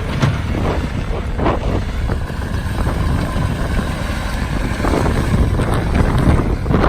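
Skid steer engine running steadily with a low rumble, with several short knocks or clanks, more of them in the second half, and wind on the microphone.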